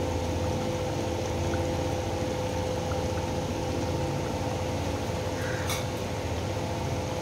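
Thick chicken curry gravy simmering in a metal pot on a gas burner, bubbling over a steady background hum, with one short click a little before six seconds in.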